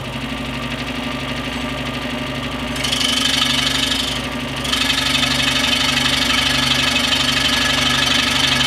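Scroll saw running with its steady motor hum and reciprocating blade. About three seconds in, the blade starts cutting into the wood with a hiss, pauses briefly a second later, then keeps cutting.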